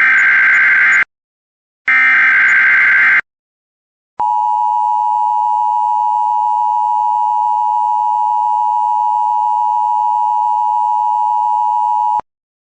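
Emergency Alert System SAME header data bursts: the last two of three harsh, buzzy digital chirps, each about a second long with a second's gap between them. They are followed by the NOAA Weather Radio 1050 Hz warning alarm tone, one steady high tone held for about eight seconds that cuts off abruptly. Together they announce a new tornado watch alert about to be read.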